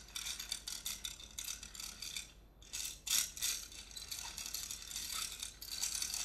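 A hand-worked object rattling in rapid clicking runs, pausing briefly about two and a half seconds in, with a louder stroke just after. It is a homemade foley sound that could stand for a scooter.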